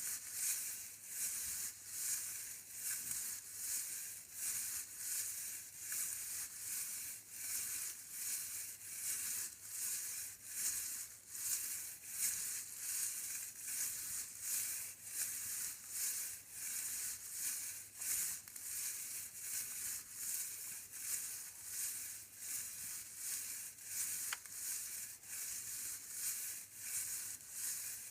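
A steady rhythmic rattling, a hissy, crackly shake repeated about twice a second without a break.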